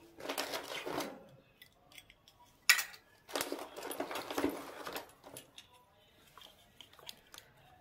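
Clear plastic packaging crinkling as hands rummage through it, with small stainless steel miniature pots and bowls clinking against each other; one sharp clink a little before the middle, and a few light ticks near the end.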